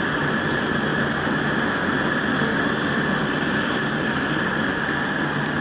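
Homemade gas burner running steadily with a constant rushing of flame. It is made from 3/4-inch black pipe with MIG welding tips screwed in as jets, and is fed through a low-pressure regulator, so the flame is not shooting high.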